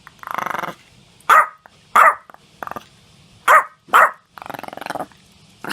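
Yorkshire terrier sneezing: a series of short, sharp sneezes, with two longer rapid rattling breaths between them.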